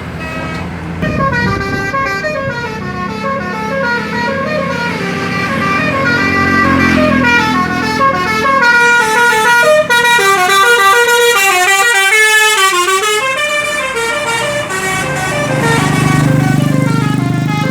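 Bus 'telolet' Basuri multi-tone horn playing a rapid melodic tune of short stepped notes, loud and continuous from about a second in, over the low hum of the bus engine.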